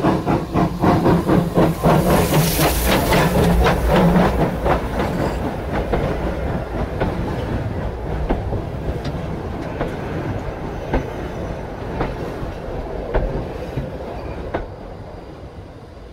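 Manning Wardle saddle-tank steam locomotive chuffing as it passes right overhead, about four exhaust beats a second, with a loud rush of steam about two seconds in. Freight wagons then roll over with a few sharp wheel clicks, the rumble fading as the train moves away.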